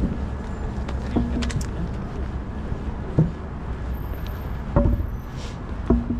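Downtown city street ambience: a steady low rumble of traffic, broken by a few short sharp knocks and clicks.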